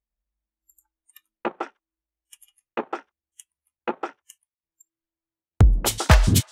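A short, overdriven electronic percussion sample played on its own, hitting in quick pairs three times. About five and a half seconds in, the full techno drum groove comes in loudly with a deep kick drum.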